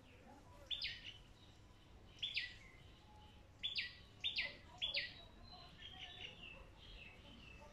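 Sharp, high animal chirps: five loud calls, each short and falling quickly in pitch, the last three coming close together, then a run of softer, lower chirps near the end.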